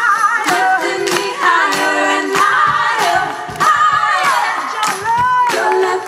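Live soul band performing: a woman sings lead with backing singers over a steady drum beat.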